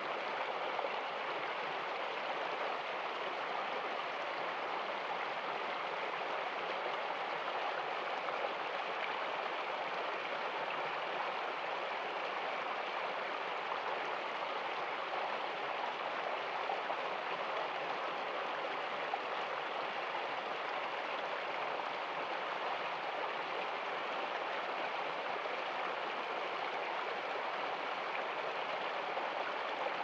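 Small shallow stream running over rocks: a steady rush of flowing water.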